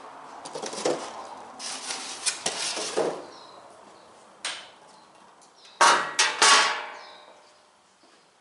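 Steel tool cart parts being handled: rustling and clattering, a knock, then three loud metallic clanks in quick succession about six seconds in.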